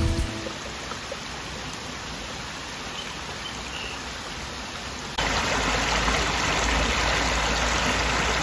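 Shallow stream running over a stony bed, a steady rush of water. About five seconds in it suddenly becomes louder and fuller.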